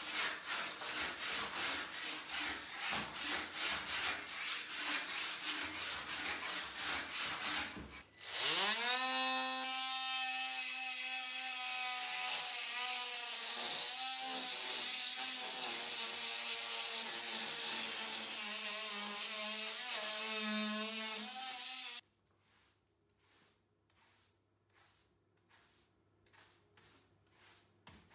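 A handsaw sawing in quick back-and-forth strokes, about two or three a second. About eight seconds in, a cordless oscillating multi-tool starts with a rising whine, settles to a steady pitch as its round pad grinds against brick and clay tile, and cuts off suddenly a few seconds before the end. After it stops come short, quiet rubbing strokes.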